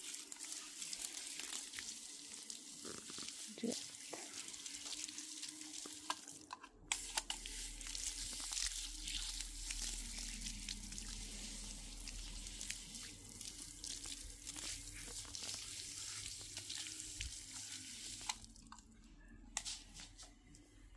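Water spraying from a garden hose's pistol-grip spray nozzle onto plants and soil, a steady hiss and patter. It cuts off briefly about six and a half seconds in, then resumes, and grows quieter near the end.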